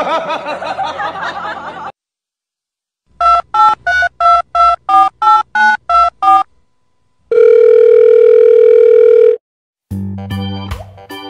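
Telephone keypad tones: about eleven short two-note beeps at roughly three a second, like a phone number being dialled, played as the dog's paw pads are pressed like buttons. A loud steady telephone tone follows for about two seconds. A short wavering sound comes before the beeps, and organ-like music starts near the end.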